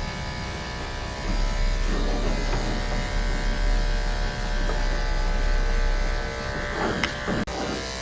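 Electric dog grooming clippers buzzing steadily, with a couple of short sharp sounds near the end.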